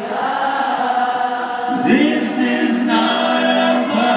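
Group of male singers singing a pop song live in harmony, heard from among the audience in a concert hall.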